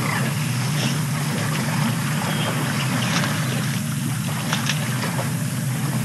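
A steady low drone, engine-like, with faint scattered splashing and squelching from an elephant calf wallowing in waterhole mud.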